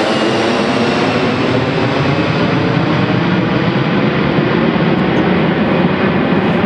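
Boeing 737-400's two CFM56-3 turbofan engines at climb power as the airliner climbs away overhead. A loud, steady jet rumble whose high end slowly dulls as it recedes.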